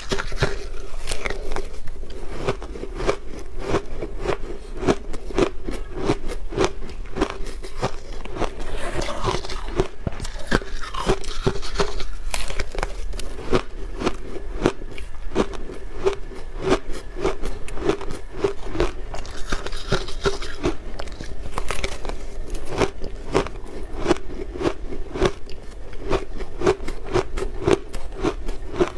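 Shaved blender ice with milk powder being bitten and chewed close to the microphone: dense, rapid crunching that goes on without pause.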